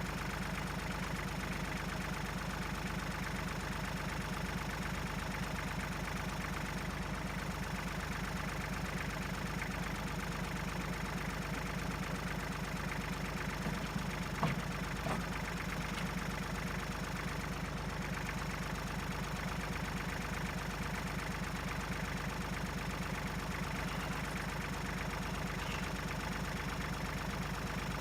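An engine idling steadily with an even pulse, with two brief knocks about halfway through.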